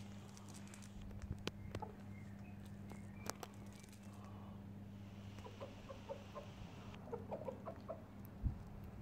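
Pekin bantam chickens clucking: a run of short, soft clucks starting about halfway through, over a steady low hum, with one dull thump near the end.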